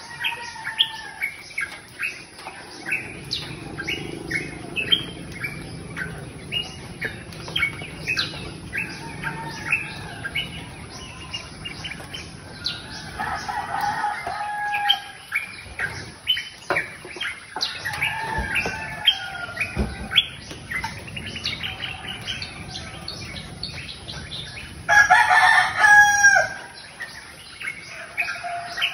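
Birds chirping in quick, repeated short calls, with one louder, longer call near the end.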